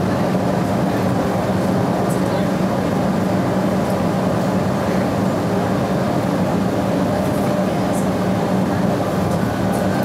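Steady rolling noise of a moving Metra Electric commuter train, heard from inside a passenger car at speed, with a steady low hum under it.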